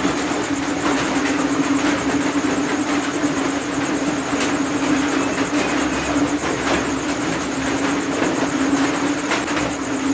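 A steady machine-like hum, a constant low tone over an even hiss, with a few faint ticks.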